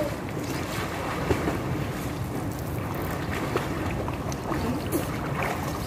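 Swimming-pool water lapping and sloshing into the overflow gutter right by the microphone, with small splashes from swimmers. Wind rumbles on the microphone.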